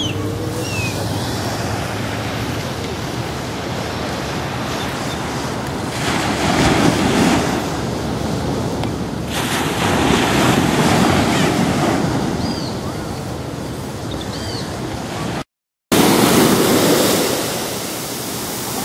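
Ocean surf breaking on a sandy beach, a steady wash of water that swells every few seconds as waves run up the shore. The sound drops out briefly about three-quarters of the way through.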